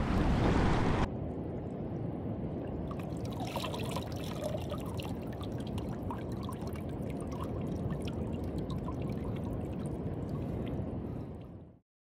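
Wind on the microphone and water washing over a shallow reef, cut off suddenly about a second in. It gives way to a quieter, steady trickling of water with small scattered drips, which fades out just before the end.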